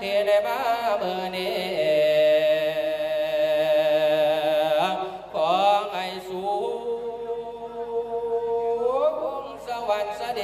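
A man chanting the Isan khwan-calling verse of a su khwan ceremony, drawing out long held notes with a wavering vibrato. His voice slides up in pitch about halfway through, breaks off briefly, then holds a lower note and slides up again near the end.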